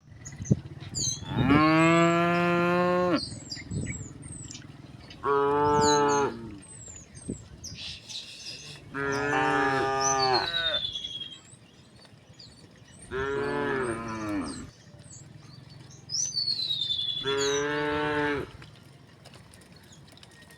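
Cows mooing: five long moos, each one to two seconds, spaced a few seconds apart, with small birds chirping in the background.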